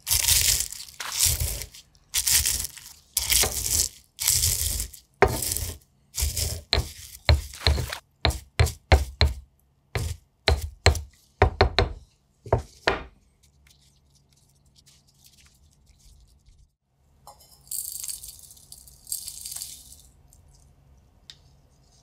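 Crispy-dry chilli peppers being crushed with a stone pestle in a stone mortar: crunching, crackling strokes about once a second, turning into quicker, sharper knocks as the pods break down to flakes, and stopping about 13 seconds in. A few seconds later, a soft rustling.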